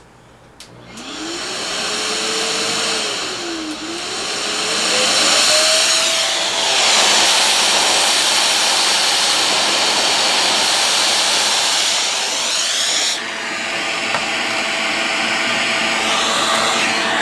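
Yiktol pet grooming vacuum switched on, its motor whine rising in pitch as it spins up over the first few seconds. It then runs steadily with a loud rush of air through the hose and comb attachment, and turns duller about thirteen seconds in.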